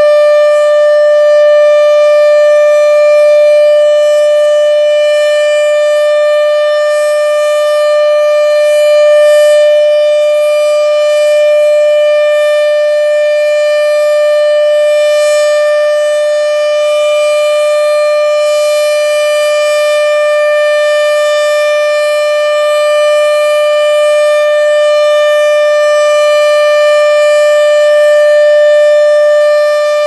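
American Signal OM-120 tornado siren sounding its Alert signal: one steady, unbroken tone that holds its pitch, swelling slightly in loudness now and then.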